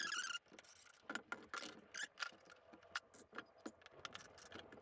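A short whir right at the start, then scattered light clicks and taps as a cordless impact driver and wooden boards are handled while pocket-hole screws are set.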